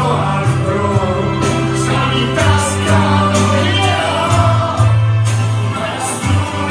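Amplified music with voices singing through a PA system, over a bass line that holds each low note for about a second before moving on.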